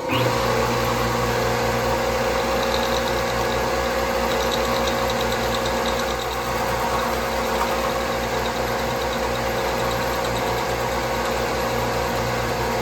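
Milling machine running steadily, its electric motor and drive giving a constant hum.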